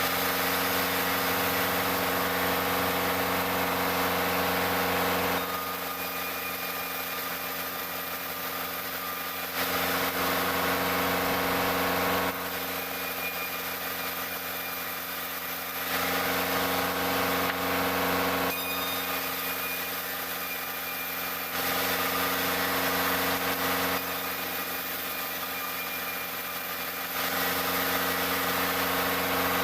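Sawmill machinery with a running engine, a steady hum, getting louder and noisier for a few seconds at a time about five times, in stretches a few seconds apart.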